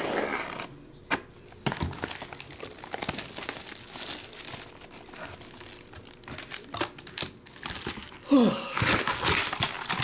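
Plastic shrink-wrap crinkling and tearing as it is slit with a blade and pulled off a cardboard trading-card box, with crackling rustles as the box is opened and the contents handled. A short falling squeak comes about eight seconds in.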